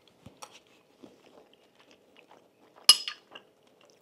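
Someone eating chili: faint small spoon and mouth sounds, then one sharp ringing clink of a spoon against the dish about three seconds in.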